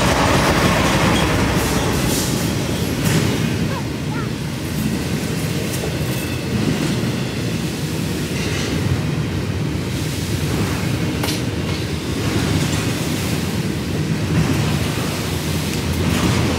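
Double-stack intermodal freight train rolling past at close range: a steady rumble of steel wheels on rail with occasional sharp clicks and clanks. The trailing BNSF diesel locomotive is going by at the start, where it is slightly louder.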